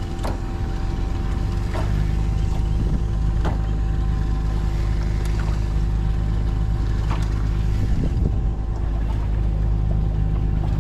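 A boat engine runs steadily with a low hum, with a few faint clicks over it.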